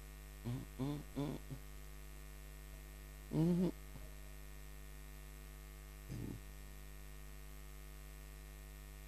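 Steady electrical mains hum with a few short vocal syllables about half a second in, a louder one around three and a half seconds, and a faint one just after six seconds.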